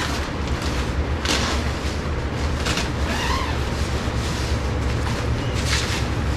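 Wind buffeting the microphone, a steady low rumble, with a few short rustles.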